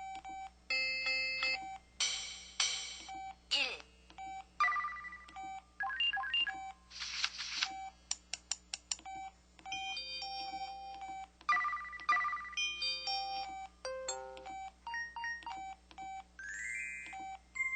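A SKY IM-8700 mobile phone playing a run of its built-in sound effects: short electronic beeps, chimes and jingles one after another, some gliding up or down in pitch, over a short beep that keeps repeating.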